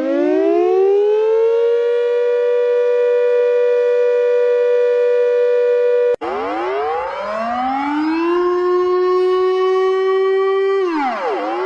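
Civil defense warning siren winding up to a steady tone and holding it. About six seconds in it cuts off abruptly, then winds up again to a lower steady tone, which near the end drops and rises again in a wail.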